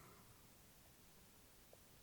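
Near silence: the pause between a sleeping elderly Labrador's snoring breaths, with only faint room hiss.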